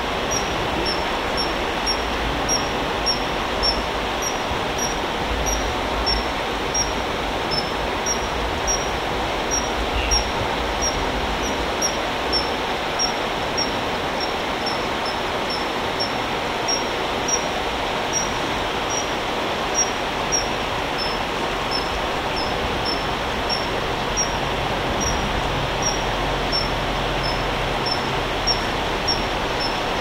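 Common kingfisher giving a long, even series of short high-pitched peeps, about two a second, typical of a fledgling begging to be fed, over the steady rush of a shallow stream.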